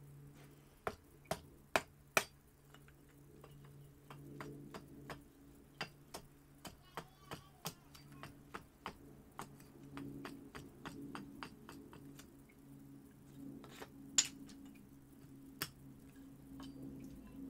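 Gransfors Bruk Large Swedish Carver axe chopping a split cherry spoon blank on a stump chopping block: sharp wooden chops, four hard ones in the first couple of seconds, then a run of lighter, quicker strikes about two a second, and one hard chop about two-thirds of the way through. A low steady hum runs underneath.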